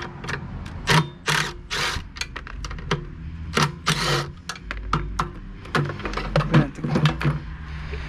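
A run of irregular clicks and knocks, with a few short scraping rattles, as tools and parts are handled during the teardown of a snowblower engine.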